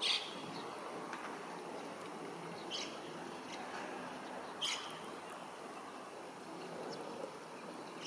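Eastern spot-billed duck ducklings giving short, high peeps, three of them a couple of seconds apart, the first the loudest, over the steady rush of shallow stream water.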